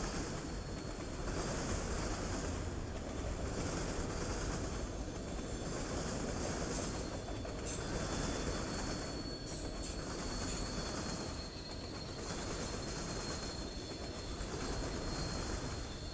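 Freight train of autorack cars passing close by: a steady rumble of steel wheels on rail with a thin, steady high wheel squeal, swelling a little more than once a second as the cars go by.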